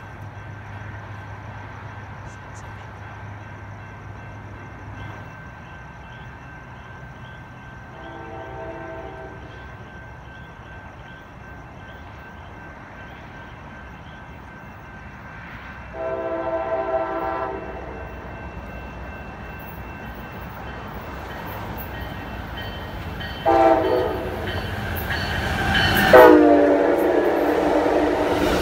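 Locomotive horn of an approaching Amtrak Pacific Surfliner train sounding the grade-crossing signal: two long blasts, a short one, then a long blast whose pitch drops as the locomotive passes. The rumble of the train running through the station builds under the last blasts and is loudest at the end.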